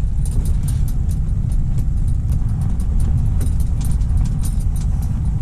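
Strong wind buffeting the microphone: a steady, loud low rumble, with faint scattered ticks above it.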